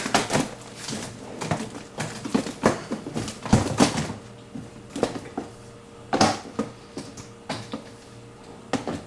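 Freezer bins being handled and fitted back into a bottom-freezer drawer: a run of irregular knocks and clicks of hard parts against each other, the loudest about three and a half and six seconds in.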